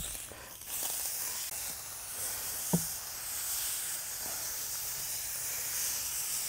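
Foam cannon on a garden hose spraying water onto a dog's coat, a steady hiss that swells about a second in. One short knock about three seconds in.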